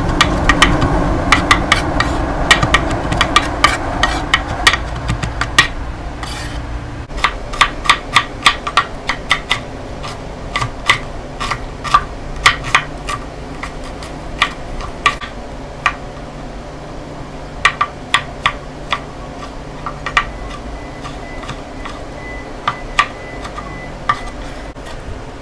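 Chef's knife chopping on a wooden cutting board: sharp, irregular knocks in quick runs with short pauses, as garlic is minced and then red onion and tomato are diced.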